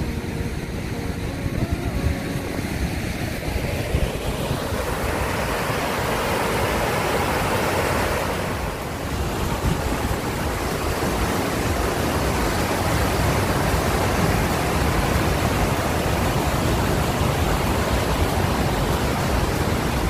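Waterfall: a steady, fairly loud rush of cascading river water, fuller from about four seconds in.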